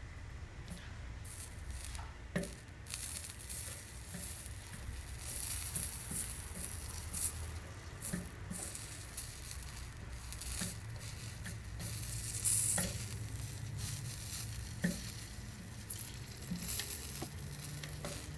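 Flux and solder paste sizzling and crackling under the tip of an electric soldering gun, with scattered small pops, as a tin patch is soldered onto a motorcycle fuel tank.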